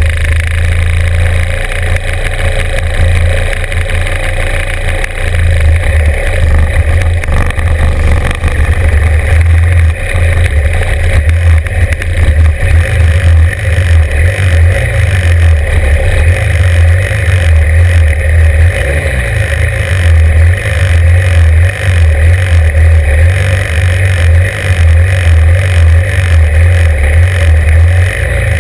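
Norton 750 Commando's parallel-twin engine idling with the bike standing still, loud and close, its level wavering unevenly.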